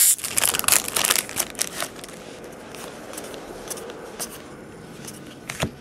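Foil trading-card pack wrapper crinkling as the cards are pulled out of it, thickest in the first two seconds. It is followed by fainter rustles and ticks of the cards being handled, with one sharper click near the end.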